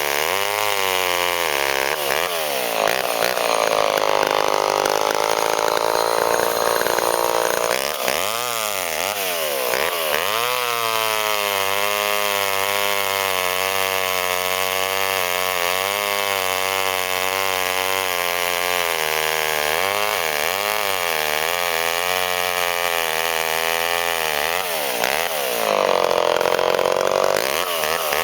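Vintage Homelite two-stroke chainsaw running at high revs with a wavering pitch. The pitch sags and recovers as the saw is loaded in the cut, from about two seconds in and again near the end, with quick revs up and down in between.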